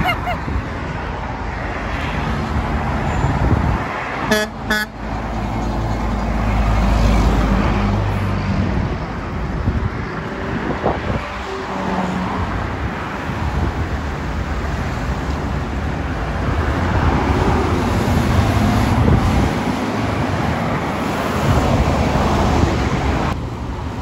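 Steady traffic passing on a busy multi-lane road, with a heavier vehicle rumbling past. About four seconds in, a vehicle horn gives two short toots.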